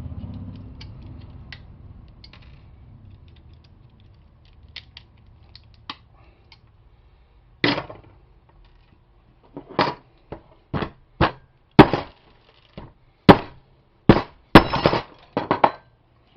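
Hammer striking a rag-wrapped wall outlet to break it apart, about a dozen irregular blows over the second half. Before that there are a few faint clicks of pieces being handled.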